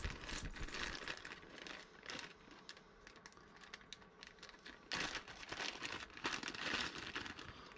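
Clear plastic zip bag crinkling in irregular bursts as hands handle and work at it, with the coiled power cords inside shifting.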